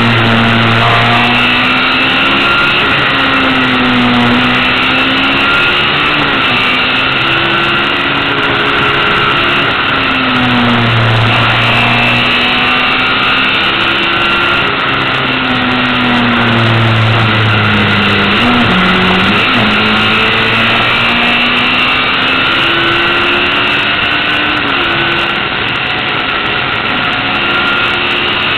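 Lola T496 racing car's engine heard close up from on board, running hard up a winding hill climb. The revs repeatedly climb and fall back as it accelerates, shifts and slows for bends, over steady wind and road rush.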